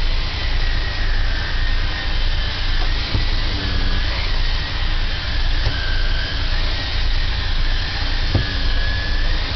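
Corded vacuum cleaner running steadily as it is worked over a motorhome floor, its motor whine wavering slightly in pitch, with a few faint knocks.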